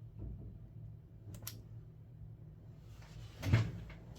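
Small handling noises at a repair bench: two light clicks about a second and a half in, then a louder brief knock or scrape near the end, over a steady low hum.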